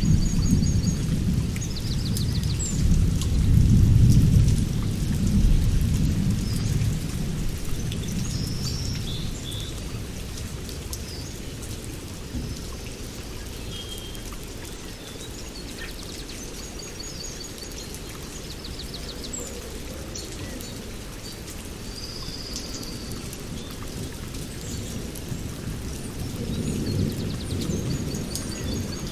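Steady rain with rolling thunder, heaviest over the first several seconds and rumbling again near the end, while birds chirp and trill now and then.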